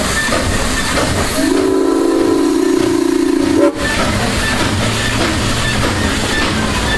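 Steam whistle of Southern Pacific #2472, a 1921 Baldwin 4-6-2 Pacific steam locomotive, blowing one long blast of about two seconds that starts about a second in and cuts off sharply. Under it runs the steady rumble and hiss of the moving train.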